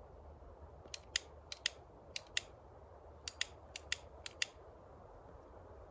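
A lighter clicked again and again while lighting a tobacco pipe: six quick double clicks, press and release, over about three and a half seconds.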